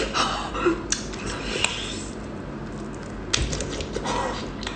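Crunching and cracking of hard-shelled seafood being chewed, with several sharp clicks among the crackling; the shell is hard.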